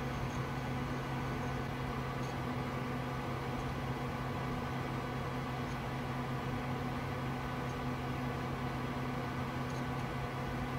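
Steady, unchanging hum and hiss of a running desktop computer, its fans and power supply droning at a constant low pitch under a memory stress test.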